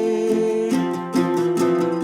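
Acoustic song on a Northfield flat-top octave mandolin: a held note of the last sung line dies away about two-thirds of a second in, and strummed octave mandolin chords follow.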